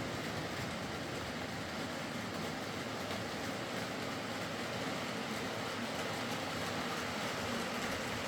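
Bachmann Class 47 OO gauge model locomotive running steadily along the track after servicing and lubrication, an even mechanical whirr of its motor and wheels on the rails.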